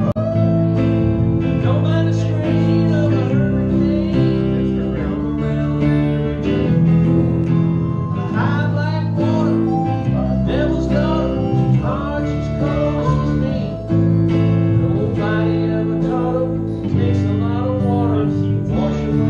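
Live acoustic band playing: acoustic guitars strumming chords, with a voice singing a melody over them.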